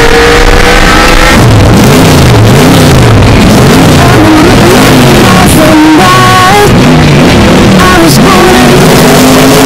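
Lightning McQueen's race-car engine sound, bass-boosted and clipped into heavy distortion, its pitch sweeping up and down over and over as if revved again and again.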